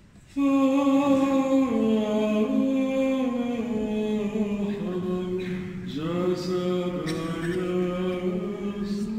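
Unaccompanied liturgical chant by a single voice, moving in slow, held notes that step mostly downward. It breaks for a breath about six seconds in, then resumes with an upward slide into the next note.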